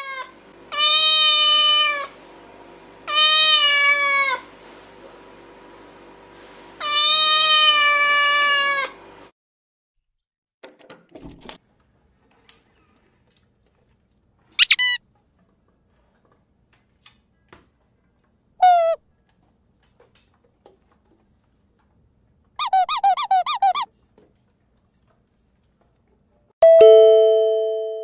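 A run of high-pitched squeaks: three long squeals, each dipping in pitch at its end, then two short chirps and a fast warbling squeak. The run ends with two steady tones ringing together and fading.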